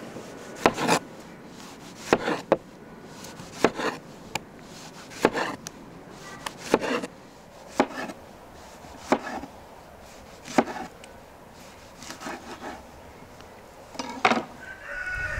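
Chef's knife slicing tomatoes on a wooden cutting board. The blade knocks sharply on the board, often two strokes close together, about every second or so.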